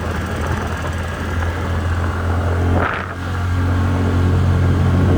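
TVS Ntorq 125 scooter's single-cylinder engine running steadily under way, with a brief higher-pitched sound and a short dip about three seconds in, after which the engine note picks up again.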